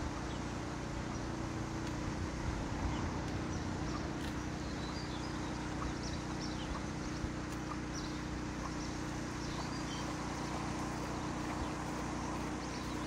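A canal boat's engine idling with a steady hum, while small birds chirp now and then.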